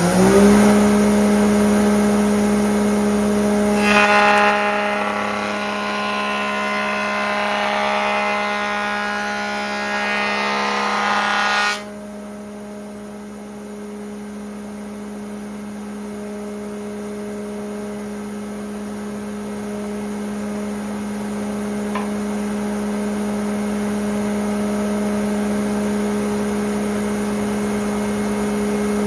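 Large stationary woodworking machine's motor running steadily, just up to speed. From about four seconds in, the cutterhead cuts a red oak board with a loud, dense cutting noise that stops abruptly near twelve seconds, and the machine runs on unloaded.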